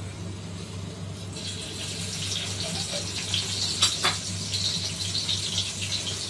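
Sliced red onion sizzling in hot cooking oil in a frying pan: a crackling hiss comes in about a second in and keeps going, with one sharp click near the middle, over a low steady hum.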